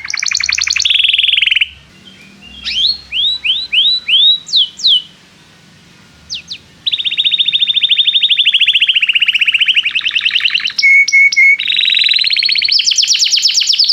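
Domestic canary singing: a fast high trill, a short pause, a run of separate up-sweeping whistled notes, then a long rapid trill about seven seconds in and more fast trills near the end.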